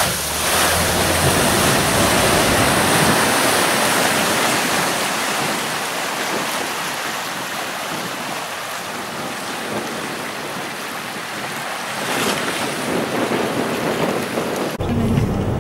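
Water surging and splashing as a Mitsubishi L200 pickup ploughs through an icy, flooded stream crossing, a dense rushing wash that swells again about twelve seconds in. Near the end it breaks off abruptly into a lower rumble.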